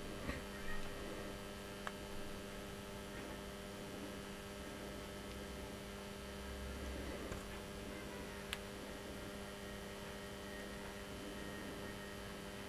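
Steady electrical mains hum, with a few faint sharp clicks as a small knife tip scrapes between the copper bars of an angle-grinder armature's commutator to clear a short where one bar has run onto the next.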